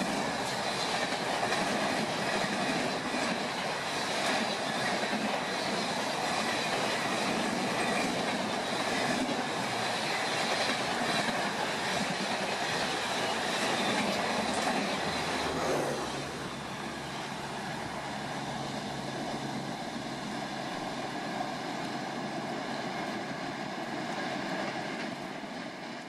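A passenger train's coaches rush past close by at speed: a steady rumble and clatter of wheels on rail, with a faint high whine from the wheels. About two-thirds of the way through the noise drops a step, and a lower rumble carries on as the train draws away.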